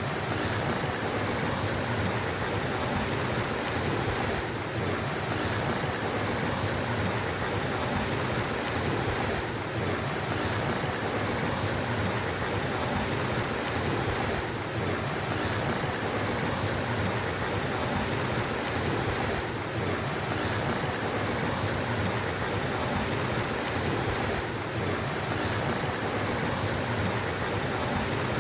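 Flowing water: a steady, dense rush of a stream or small river, dipping faintly about every five seconds.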